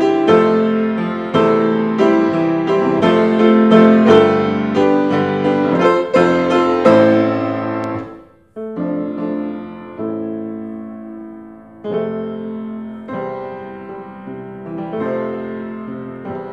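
Grand piano playing full chords, with a brief break a little past halfway, after which the playing goes on more quietly.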